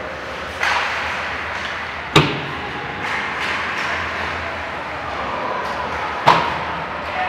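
Ice hockey play in an indoor rink: steady rink noise with two sharp cracks of stick and puck, about two seconds in and about six seconds in, each echoing briefly.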